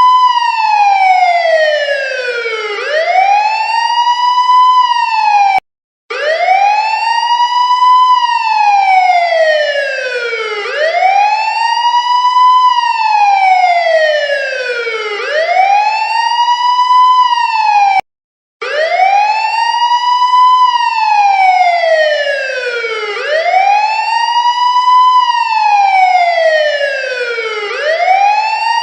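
Police car siren sounding a wail: the pitch climbs quickly, then slides slowly down, over and over about every four to five seconds. It cuts out briefly twice, about six and eighteen seconds in.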